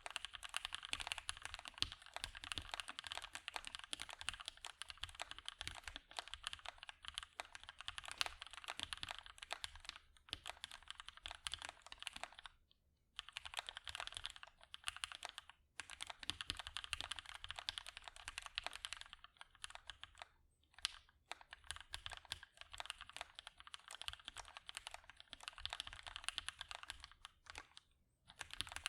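Typing on a Vulcan x KBDFans Maja mechanical keyboard with lubed and filmed Gateron Hippo linear switches, GMK keycaps and a POM plate: a dense, continuous run of keystrokes. It breaks off for brief pauses about 12 s in, again at about 15 s and 20 s, and near the end.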